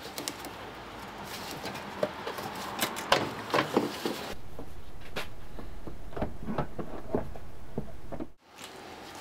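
Hands working loose a plastic coolant reservoir in a car's engine bay: irregular clicks, taps and knocks of plastic and metal parts being handled. A steady background hum comes in about four seconds in and cuts off briefly near the end.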